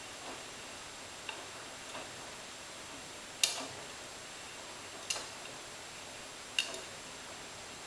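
AEG Öko-Lavamat 86760 front-loading washing machine tumbling laundry in its wash cycle: a faint steady hiss with sharp clicks from the load knocking in the stainless drum. The clicks are small in the first half, then three louder ones come about a second and a half apart.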